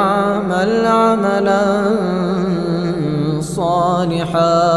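A male reciter chanting the Quran in melodic tajweed style, drawing out the word 'falya'mal' in a long, ornamented line. About three and a half seconds in he briefly dips, then starts a new rising phrase.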